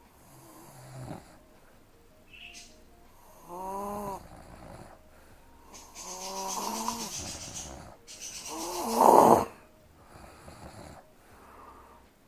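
A young woman snoring in her sleep: three pitched, wavering snores about two to three seconds apart, the last the loudest, with quieter breaths in between.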